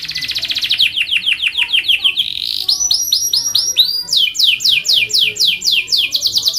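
Domestic canary singing: a rapid high rolling trill that breaks about two seconds in into series of repeated notes that sweep downward in pitch, several a second.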